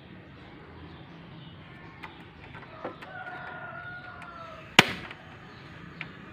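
Gas stove knob turned and its igniter snapping once, sharply, about three-quarters of the way through as the burner lights, with a fainter click a second later. Just before the snap, a rooster crows in the background in one long held call.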